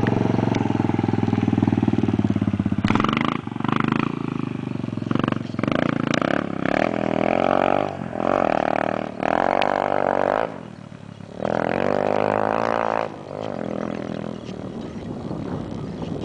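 Dirt bike engine running steadily for the first few seconds, then revving in repeated bursts with short dips between them as it rides off, growing fainter near the end.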